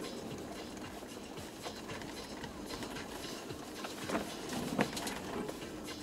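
Toyota Land Cruiser 120 on the move, heard from inside the cabin: steady road and tyre noise full of small rattles and clicks, with two louder knocks about four and five seconds in.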